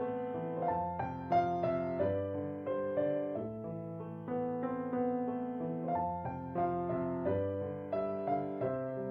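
Background piano music: a melody of struck notes over lower held bass notes.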